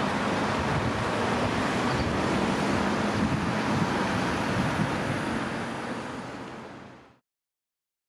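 Road traffic, with cars and heavy diesel vehicles going by in a steady hum and low rumble. The sound fades out over about a second and stops about seven seconds in.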